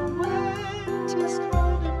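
Background music: a gentle instrumental melody over sustained bass notes, the bass moving to a new note about one and a half seconds in.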